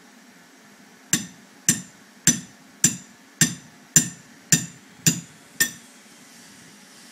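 A hammer driving a metal stake into the ground: nine even blows, a little under two a second, each with a brief metallic ring.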